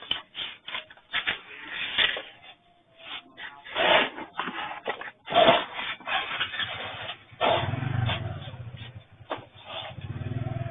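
A store's shelves and goods rattling and clattering irregularly as a strong earthquake shakes the building, joined by a low steady rumble about seven and a half seconds in.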